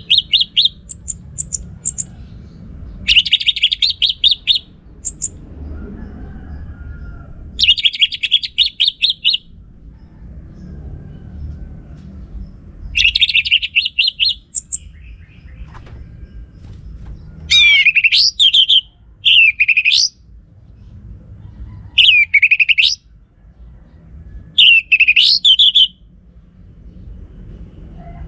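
Orange-headed thrush singing in separate phrases a few seconds apart. The first several phrases are rapid chattering trills, and the later ones are quick whistled notes that swoop up and down.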